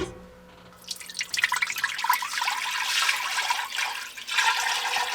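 Turkey stock being poured into a pot, a steady splashing pour that starts about a second in.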